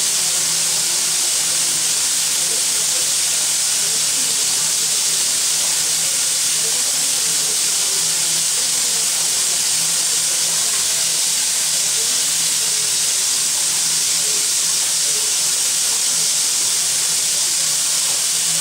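Steady, loud hiss of steam venting from the L-4600, a Soviet L-class (Л) steam locomotive, standing at the platform, unbroken and even throughout.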